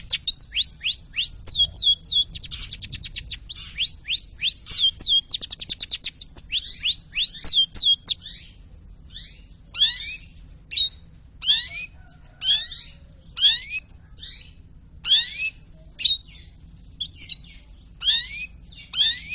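Long-tailed shrike (burung pentet) singing: a fast, unbroken run of quick sweeping notes through the first half, then single sharp calls spaced about a second apart.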